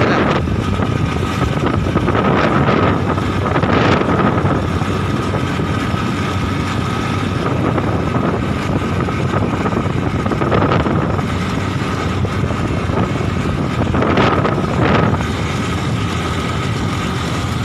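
Wind buffeting the microphone on a moving Honda motorcycle, its engine running under the rush with a steady hum. The wind gusts louder about four seconds in and again near fifteen seconds.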